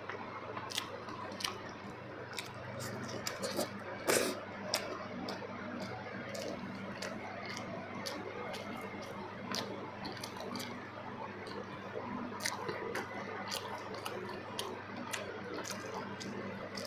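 A person chewing soft, wet food close to the microphone, kuzhi paniyaram with chutney and gravy, with frequent sharp mouth clicks and one louder click about four seconds in.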